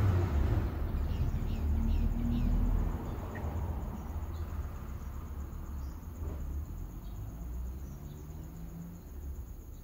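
Outdoor ambience: a steady high insect drone over a low rumble that is loudest for the first three seconds and then eases, with a few short high chirps about a second in.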